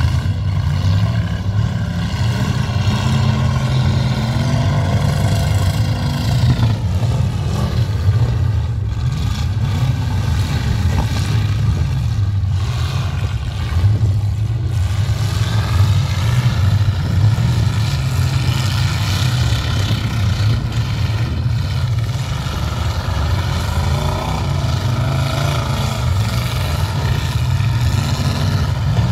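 Demolition derby cars' and trucks' engines running and revving together, a loud steady drone whose pitch rises and falls.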